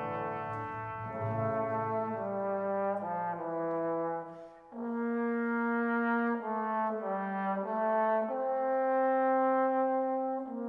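Background music: a slow melody of held, horn-like notes that change every second or so over a lower line.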